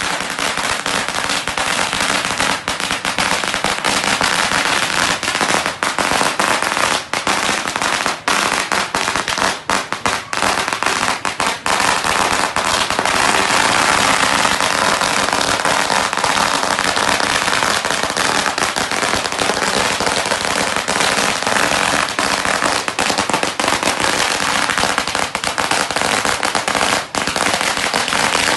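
Firecrackers going off in a long, unbroken crackle of rapid bangs.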